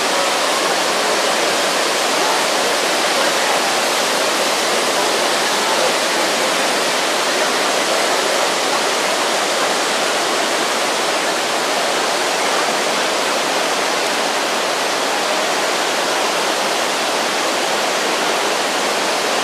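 Niagara Falls heard close up: a loud, steady rush of heavy falling water that does not let up.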